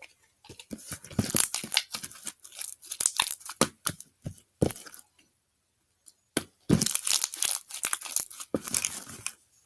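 Unicorn gloss slime, still a little sticky after a little activator has been added, being kneaded and pulled by hand on a hardcover book: a quick, irregular run of short sticky snaps, with a pause of about a second halfway through.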